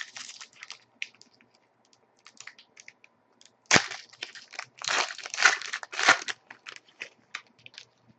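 A 2011-12 Panini Contenders hockey card pack wrapper crinkling and tearing as it is handled and opened, in loud bursts from just under four seconds in until about six seconds in. Light clicks and rustles of cards being handled come before and after.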